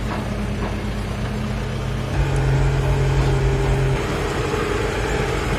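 Farmtrac 675DTN tractor's diesel engine running under load, heard from inside the cab, pulling trailers of heavy bales that have sunk into soft ground. About two seconds in the engine note changes and grows a little louder as it takes the strain.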